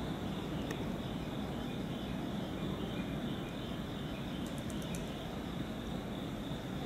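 Low, steady rumble of an EF65 electric locomotive approaching from far off, with a steady high insect trill over it.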